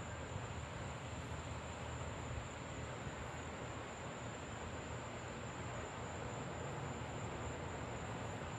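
Steady outdoor night background: an even hiss over a low steady hum, with a constant high thin tone. No thunder or other sudden sound is heard.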